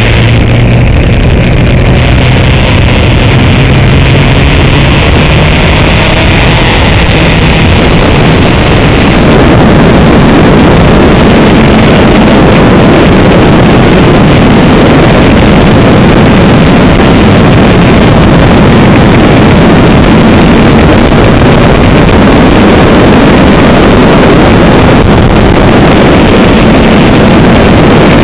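Heavy wind buffeting on a motorcycle-mounted camera's microphone at riding speed, with the Honda CBR 600's inline-four engine running underneath. The engine's steady hum stands out in the first few seconds, then the wind roar swamps it from about a third of the way in.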